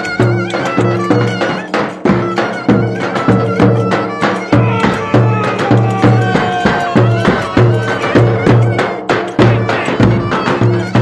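Turkish folk dance music from a band, with a steady, evenly repeating drum beat under a melody line.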